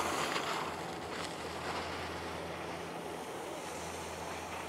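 Steady wind noise on the microphone, with a faint low hum underneath.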